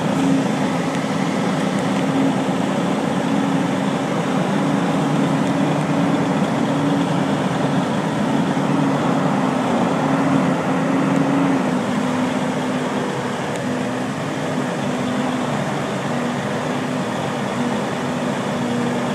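Steady drone of heavy machinery: a Krone BiG X 1100 self-propelled forage harvester chopping silage alongside a truck, heard from inside the truck's cab together with the truck's own engine. A constant low hum runs under a steady rushing noise, with no breaks.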